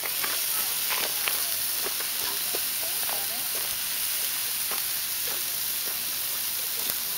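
Steaks and meat skewers sizzling on a grill over hot coals: a steady hiss with scattered small pops and crackles of cooking fat.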